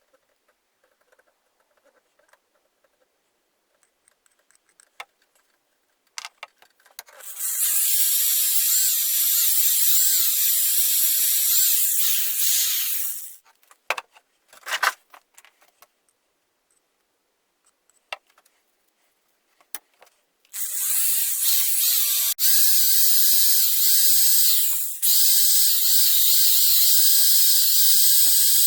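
A homemade metal wire paint mixer is spun in a pot of acrylic paint, making a steady whirring hiss. It runs twice: once for about six seconds, then again for about eight, with small clicks and taps in the pause between.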